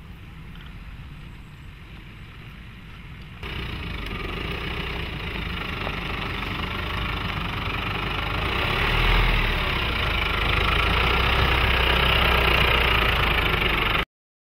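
Nissan Navara's 2.3-litre diesel engine running: a faint low rumble at first, then after a sudden jump in level about three seconds in, a louder steady diesel clatter and hum that swells slightly a few seconds later. It cuts off abruptly just before the end.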